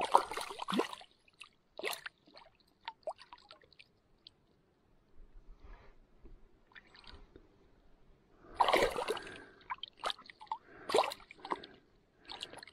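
Shallow lake water splashing and sloshing around a hand holding a brook trout at the surface during its release, in irregular bursts with the largest splashing about two-thirds of the way through.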